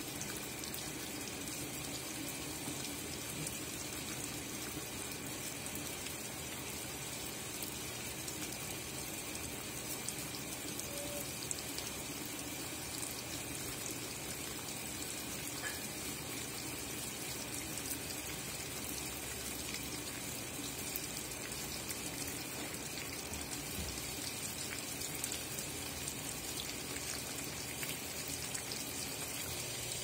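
Water pouring steadily from the inlet into the drum of a Consul 13 kg top-load washing machine loaded with jeans, splashing onto the wet clothes.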